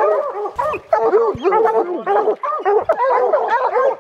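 A pack of bear-hunting dogs barking rapidly, several dogs at once at different pitches, in a steady chorus.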